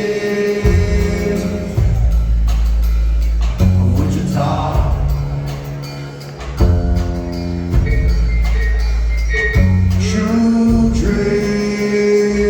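Live band playing a slow chorus: long held chords over a deep bass line and drums, with singing stretched over the held notes.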